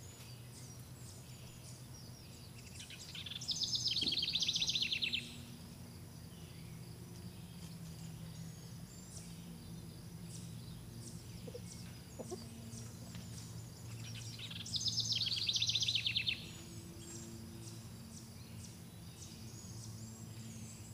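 Small birds chirping over a low steady hum, with two loud rapid trills about eleven seconds apart.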